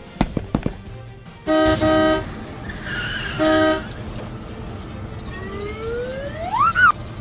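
Cartoon sound effects: a few quick clicks, then two blasts of a toy-vehicle horn, one long and one short, and a rising whistle-like glide near the end.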